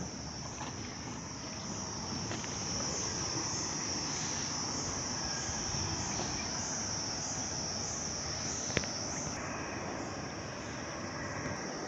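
A steady, high-pitched insect chorus that wavers slightly, over a faint wash of background noise, with one small click about nine seconds in.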